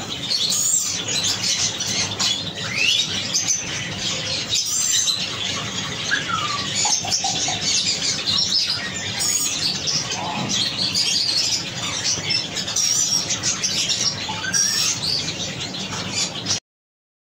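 Many caged pet birds chirping and chattering at once, with short rising whistles scattered through, over a steady low hum. The sound cuts off abruptly near the end.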